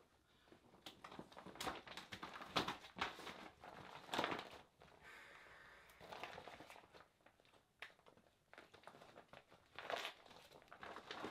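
Clear plastic gas-mask hood crinkling and rustling in irregular bursts as it is pulled over the head and adjusted.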